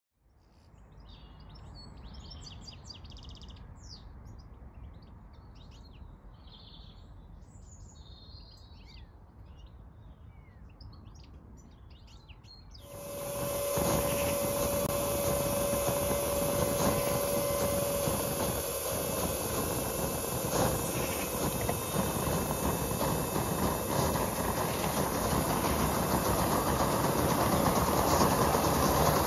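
Birds chirping over a low outdoor rumble. About thirteen seconds in, an Aster gauge 1 live-steam model of an LNER B1 locomotive comes in much louder, running with a steady hiss and light clicks over the track. A held tone sounds for its first five seconds or so.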